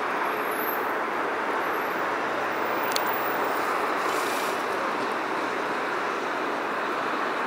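Steady, even rushing of distant traffic, with no single engine standing out.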